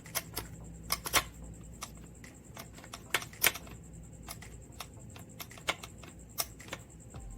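Irregular sharp clicks and knocks from hands working parts and tools while fitting the clutch throwout bearing on a transmission, the loudest about a second in and about three and a half seconds in.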